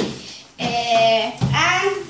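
A young girl speaking slowly in English, drawing out a word about half a second in and starting another near the end.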